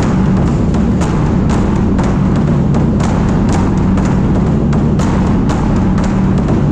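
Large Chinese hide-headed drums beaten by several drummers at once: a dense, continuous low drumming with sharper strokes standing out about twice a second.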